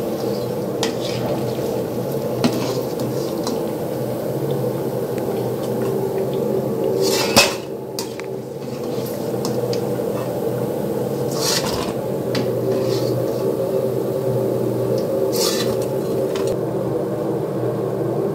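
A perforated metal ladle scraping and clinking against a steel kadai while turning and lifting masal vadais out of the frying oil. The loudest scrape comes about seven seconds in, with two more near the middle and toward the end, over a steady low hum.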